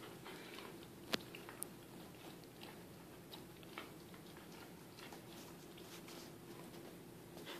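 Dogs tugging and chewing on a rope toy, faint mouthing and gnawing with a few small clicks, the sharpest about a second in.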